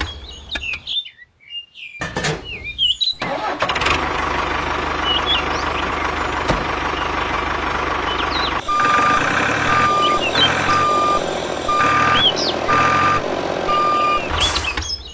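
Heavy vehicle engine running, with a reversing alarm beeping about once a second through the second half and birds chirping. The sound drops out briefly twice in the first three seconds.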